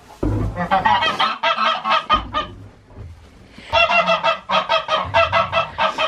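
Poultry calling: two long runs of rapid, repeated harsh calls, several a second, the second run starting about halfway through.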